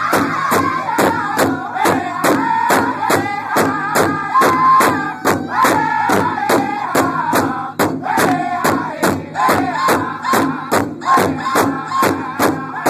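A powwow drum group sings a round dance song together in high male voices over a large drum struck in a steady beat, about three strikes a second. The singing dips briefly just before the middle, then the next phrase starts.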